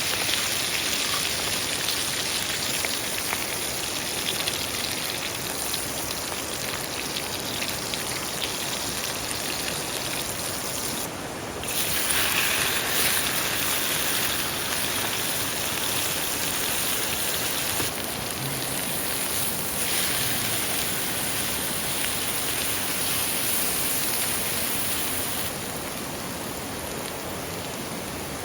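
Steady rushing water: an even hiss with no speech or tones in it. It shifts abruptly in level and character several times, louder about twelve seconds in and quieter near the end.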